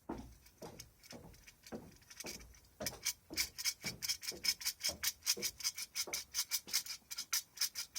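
The tin-plate oscillating mechanism under a toy tank's anti-aircraft gun being worked by hand, its plate and tabs scraping as the barrels rock back and forth. It starts with slow strokes about twice a second, then from about three seconds in turns to a fast, even run of clicking scrapes, about five a second.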